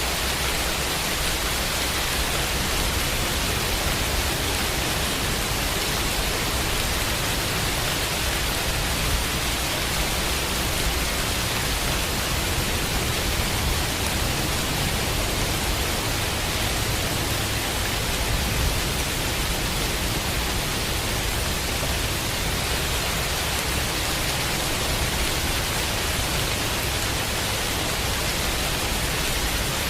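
Steady rain, an even unbroken hiss with a low rumble beneath it.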